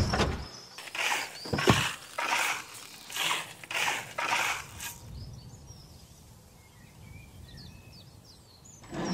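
Shovels scraping and tossing soil, about seven strokes over some four seconds, then faint birds chirping.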